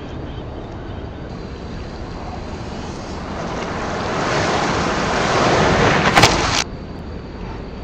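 River water surging and splashing, a rushing noise that grows louder over a few seconds. A sharp click comes at its peak, then the rush cuts off abruptly.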